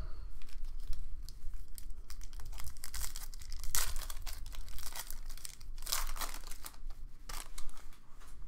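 Foil baseball card pack wrapper being torn open and crinkled by hand, an irregular crackling with louder rips about four and six seconds in.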